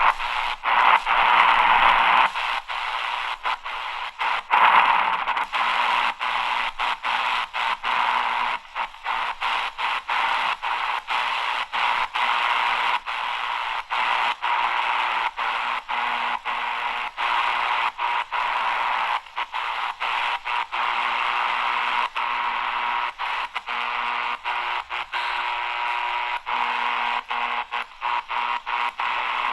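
AGPTEK R09 portable radio giving steady static hiss through its speaker as it is tuned step by step between stations. The sound cuts out briefly at each tuning step, about two times a second, and faint steady whistles sit under the static.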